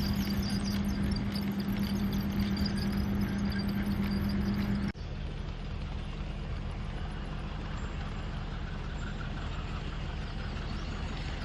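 Garden-scale model train running on track: a steady motor hum with faint high squeaks from the wheels. About five seconds in it cuts off abruptly to a quieter, steady hum.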